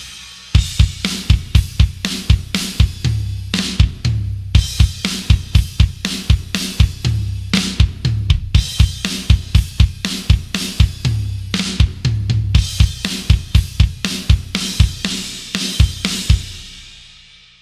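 Sampled metal drum kit from the EZdrummer 3 Modern Metal EZX library playing a hard-hitting groove of kick, snare, hi-hat and cymbals, with fast runs of kick drum in several stretches. The playing stops near the end and a cymbal rings out and fades.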